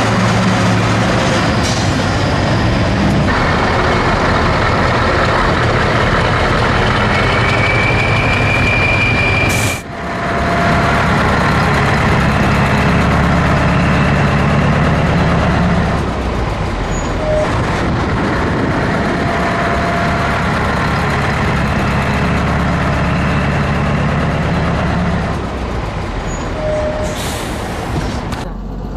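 Classic Scania 141 trucks with V8 diesel engines driving past close by one after another, their engines loud with a deep low rumble.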